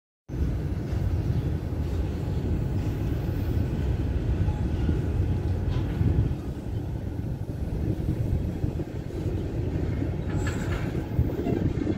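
Freight train of covered hoppers and boxcars rolling past close by: a steady rumble of steel wheels on rail. It starts after a brief dropout and has a few sharper clicks near the end.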